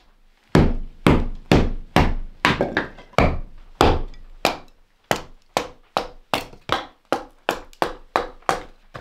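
Batoning kindling: a wooden baton strikes the spine of a knife driven down through a stick of firewood stood on end. About twenty sharp wooden knocks come about two a second, starting about half a second in and getting a little quicker in the second half.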